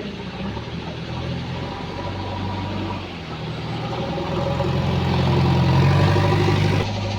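JCB 3DX backhoe loader's diesel engine running. Its revs and loudness rise from about four seconds in, then drop back suddenly near the end.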